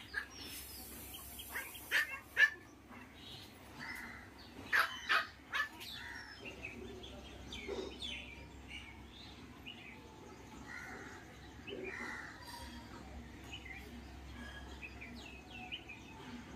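Scattered short animal calls: a louder pair about two seconds in and a cluster about five seconds in, then fainter chirps.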